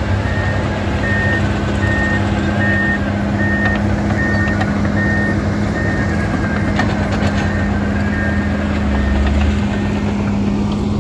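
Heavy earthmoving machine's engine running steadily while its reversing alarm beeps a little more often than once a second, the beeping stopping near the end. A few metal clanks come about two-thirds of the way through.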